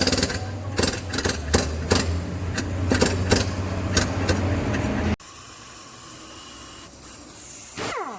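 TCM forklift's diesel engine running with irregular metallic knocks and clanks over it. About five seconds in the sound cuts off abruptly to a steady hiss, with a falling swoosh near the end.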